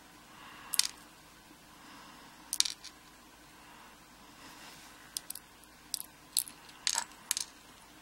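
Small brass lock driver pins clicking as they are picked up and set down on a plastic pin tray: about nine short, light clicks, a few in the first half and quicker ones in the second half.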